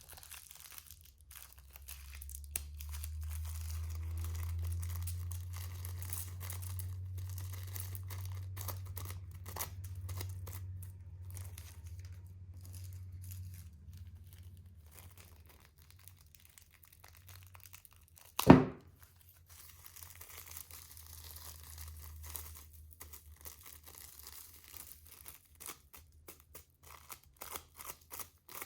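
Slime being squeezed and worked in plastic piping bags: plastic crinkling and sticky crackling. A low rumble runs under the first half, and there is one loud thump about two-thirds of the way in.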